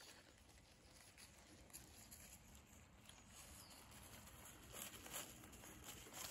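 Near silence: faint outdoor ambience with a few soft rustles about five seconds in, between louder stretches of footsteps crunching through leaves.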